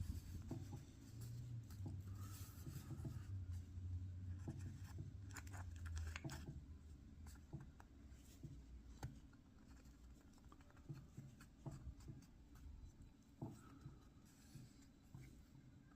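Faint handling noises of small carburetor parts being worked by hand: scattered light clicks and rustling, with a low rumble through the first several seconds.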